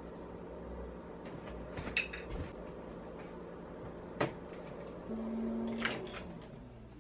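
A few light taps, then a metal baking tray picked up off the counter with a sharp clack, and an oven door pulled open with a short low hum and a cluster of clicks from its latch and hinge.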